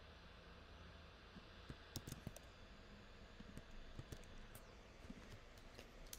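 Faint scattered clicks of a computer mouse and keyboard over low room hiss.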